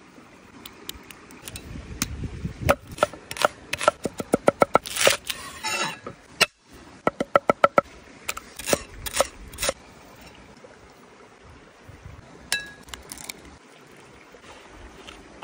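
Cleaver chopping on a wooden board: quick runs of sharp chops, with a short scrape of the blade between them and a single knock near the end.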